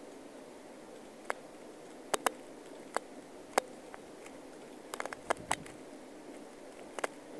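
About a dozen sharp, irregular clicks, several coming in quick pairs or small clusters, over a faint steady room hum.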